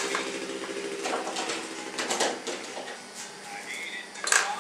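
Hand-handling of objects at a workbench while a knife is picked up: scattered clicks and knocks, loudest near the end, with a short high chirp a little before them.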